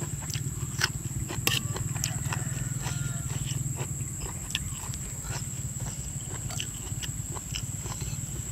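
Close-up eating sounds: chewing and crunching with many short sharp clicks and taps. Under them runs a steady low drone with a fine rapid pulse, like a small engine, and a thin steady high whine.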